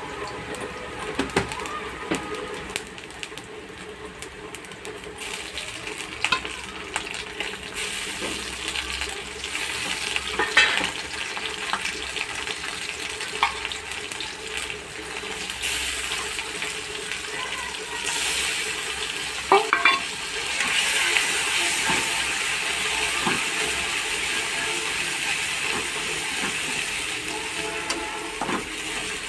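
Food sizzling as it fries in a pan, with stirring and now and then a sharp clink of a utensil against the pan. The sizzle grows louder about two-thirds of the way through.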